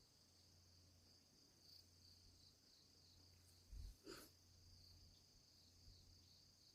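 Near silence with crickets chirring faintly and steadily over a low hum. A soft low thump and a brief click come just past the middle.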